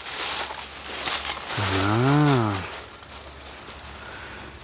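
Leaves and dry brush rustling as a person pushes through undergrowth. About two seconds in comes one low voice-like hum, about a second long, that rises and falls in pitch.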